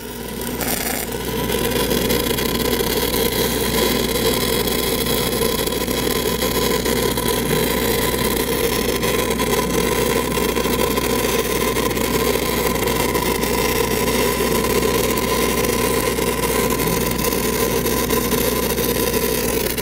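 Stick-welding arc on a 6010 electrode running a downhill root pass on pipe: a steady crackling hiss that builds up about a second in and holds, over the steady hum of an engine-driven rig welder.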